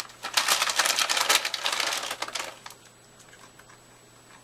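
Foil-lined potato chip bag crinkling as a hand rummages in it for chips, a dense crackle lasting about two and a half seconds, then only a few faint clicks.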